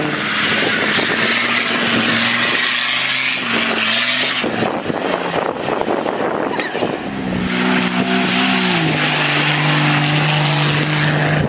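Off-road 4x4 race vehicle engines working hard up a muddy hill-climb course, with a dense rush of engine and tyre noise. The engine note holds steady, then drops in steps between about seven and nine seconds in.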